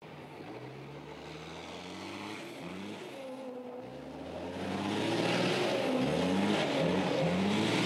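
Kamaz Dakar rally truck's diesel engine revving in repeated rising surges as it drifts, growing louder from about halfway through, with a hiss of tyres on wet tarmac.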